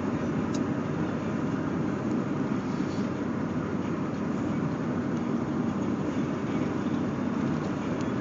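Steady engine and road noise heard from inside the cab of a moving truck.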